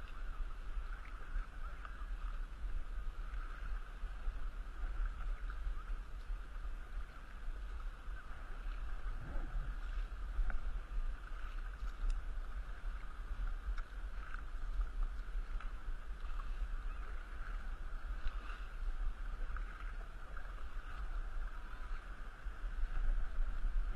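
Kayak paddle strokes splashing and lapping in lake water, over a steady low rumble of wind on the microphone.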